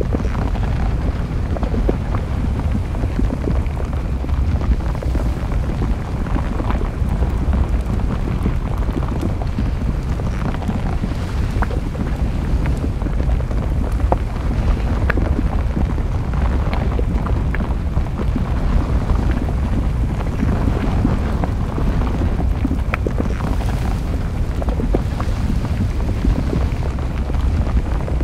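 Volcanic eruption: a steady low rumble from the erupting vent and flowing lava, with scattered sharp crackles and pops.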